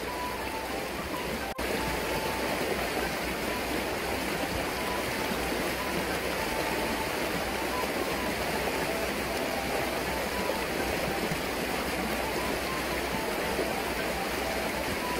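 Fast, shallow river riffle rushing over stones, a steady, even water noise.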